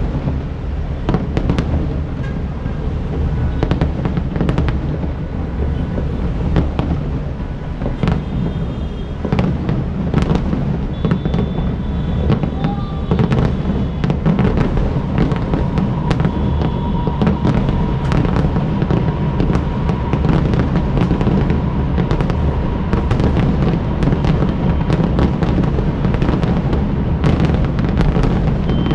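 Fireworks display: a dense, continuous run of pops, bangs and crackles over a steady low rumble.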